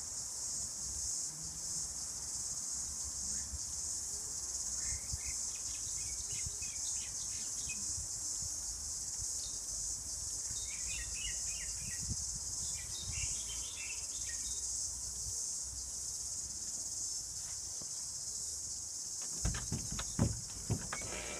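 Steady, high-pitched chorus of insects trilling. Scattered bird chirps come through in the middle, and a few sharp knocks sound near the end.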